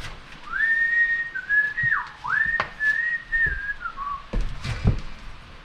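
A person whistling a short tune of a few held notes with quick dips between them, then a few knocks.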